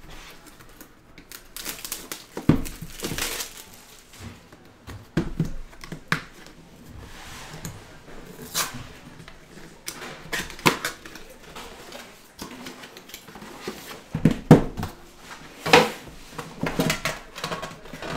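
A cardboard trading-card hobby box being opened by hand: the cardboard scraping and rustling as it is folded open, with scattered clicks and light knocks, the loudest a few sharp knocks near the end as the metal tin inside is reached.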